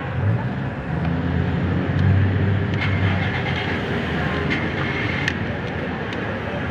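A steady low engine-like rumble, with a few sharp metallic clicks and a brief high squeal in the middle.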